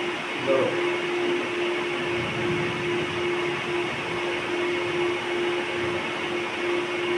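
A steady electric hum with one held tone and a noisy whirr, from a small motor or appliance running. The tone sets in about half a second in and drops out briefly a few times.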